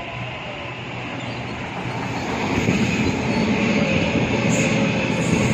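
Sydney Trains B-set (Waratah Series 2) electric train pulling into the platform, its running noise growing steadily louder as it comes alongside. A brief high wheel squeal comes about four and a half seconds in.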